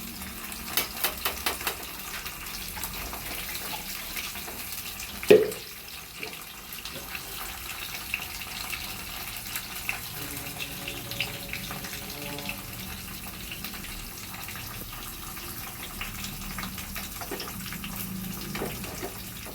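Indian borage (karpooravalli) leaves frying in hot coconut oil in a small kadai: a steady sizzle with crackling pops, busiest in the first couple of seconds, as the leaves fry from green toward brown. A single sharp knock about five seconds in.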